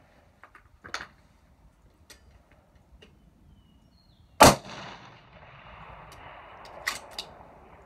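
A single loud rifle shot about halfway through, with a noisy wash trailing after it for a few seconds. Two sharp clicks follow near the end.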